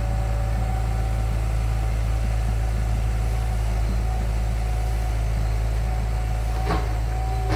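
A heavy engine running steadily, a deep even hum, with a short knock near the end.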